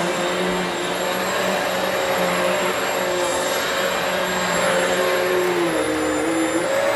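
Hoover Elite Swivel XL Pet upright vacuum cleaner running steadily while cleaning carpet, a constant motor hum and whine with airflow noise. Its pitch shifts slightly near the end as the load on the motor changes.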